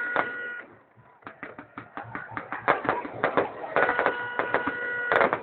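Aerial fireworks going off in rapid cracks and pops, with a short lull about a second in. A steady high tone sounds over the crackling at the start and again near the end.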